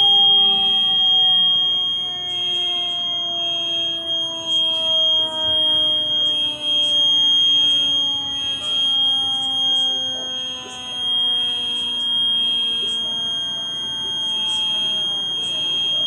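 Building fire alarm sounding a steady high-pitched tone with a pulsing beep over it, while a fire engine's siren slowly winds down in pitch underneath.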